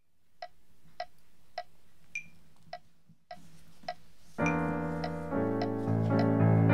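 Metronome click track ticking a little under twice a second, every fourth beat accented with a higher beep. About four and a half seconds in, a piano accompaniment with bass comes in over the clicks.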